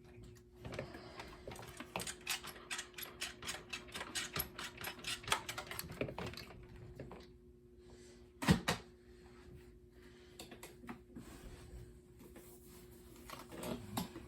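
Hand-handling noise: a quick, irregular run of small clicks and taps for several seconds, then a single louder knock, with a few more clicks near the end over a faint steady hum.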